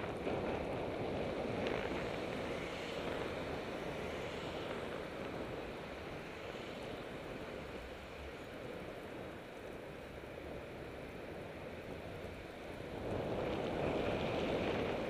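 Wind rushing over the microphone of a camera on a moving bicycle, mixed with tyre and street traffic noise; it eases off in the middle and grows louder again near the end.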